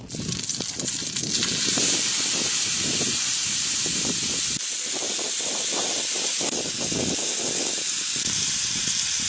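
Hot oil sizzling under a whole scored fish frying in a wide pan: a steady hiss that starts suddenly, with irregular pops and crackles of spattering oil underneath.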